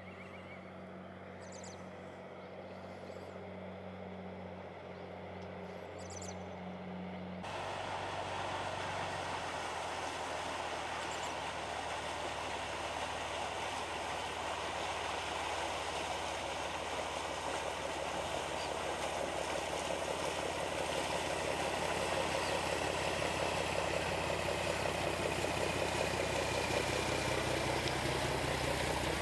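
Small fishing boat's engine running with a steady low drone, over the rushing wash of its wake, growing louder as the boat comes close.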